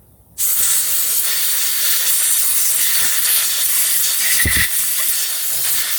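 Aerosol carburettor cleaner hissing in one long, steady blast into a ball bearing, flushing out the old, gritty grease. The hiss starts about half a second in.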